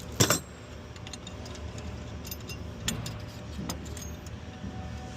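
Metal hand tools and small metal parts clinking as a bracket is unbolted, with a sharp metallic clatter just after the start and scattered light clicks after.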